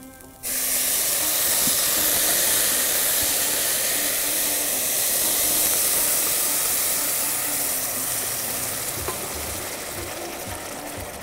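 Hot meat broth ladled into a pot of rice toasted in hot ghee, hitting the hot pot with a sudden loud sizzle and hiss of steam about half a second in, then slowly dying down.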